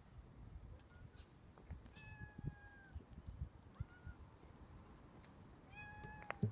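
Domestic cat meowing: a long, even meow about two seconds in, a short rising one a little later, and another long meow near the end.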